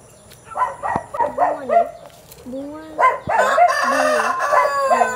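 Chickens clucking in short runs, then a rooster crowing for about two seconds from about three seconds in.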